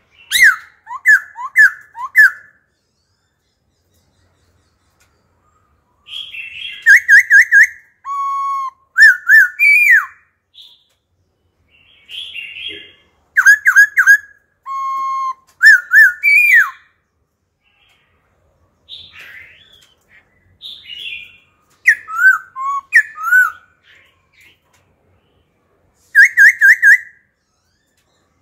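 A caged black-throated laughingthrush singing in five loud bursts of whistled song, separated by pauses of a few seconds. The phrases mix quick runs of repeated notes with long held whistles, and each burst is patterned differently.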